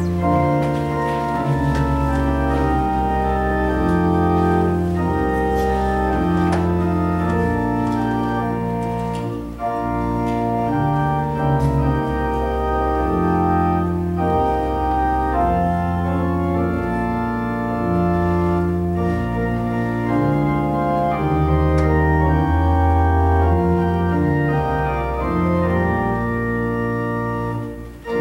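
Church organ playing the introduction to a hymn: full held chords over a stepping bass line, with short breaths between phrases about ten seconds in and just before the end, leading into the congregation's singing.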